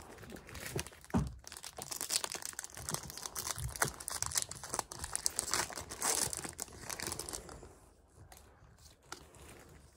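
Foil wrapper of a Pokémon trading-card booster pack crinkling and crackling as it is torn open by hand. The crinkling dies down about three quarters of the way through.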